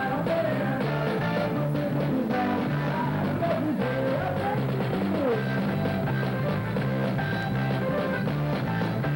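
Live band music with a steady beat and bass line, a melodic lead gliding in pitch over it.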